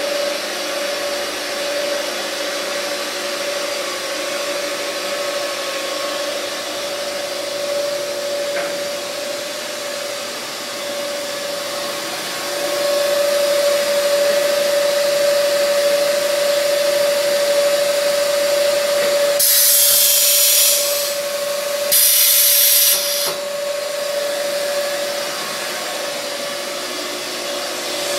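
Ribbon blender running: a steady motor and drive hum with a constant high whine. Two loud bursts of hiss break in about two-thirds of the way through.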